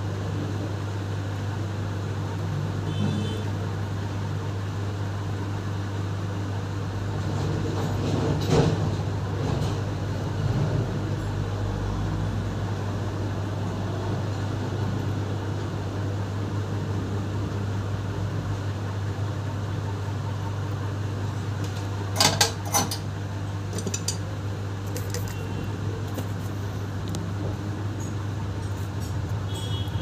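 Steady low electrical hum, with small clicks and taps of metal tools on the work: one about a quarter of the way in and a quick cluster about three-quarters through.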